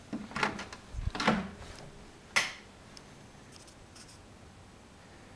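An interior wooden door being opened: a few short clicks and rubs from the handle and latch, a low bump about a second in, and a sharper click about two and a half seconds in, followed by a few faint ticks.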